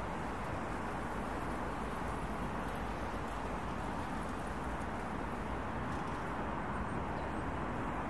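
Steady noise of distant road traffic, an even wash of sound with no single vehicle standing out.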